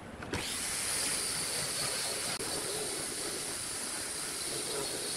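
Steady hiss that starts suddenly about a third of a second in, with a few faint clicks of wooden strips being set down.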